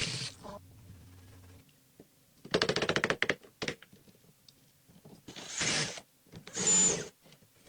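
Hand and tool work on door lock hardware: a quick run of clicks about two and a half seconds in, a couple of single clicks, then two short bursts of rasping mechanical noise near the end.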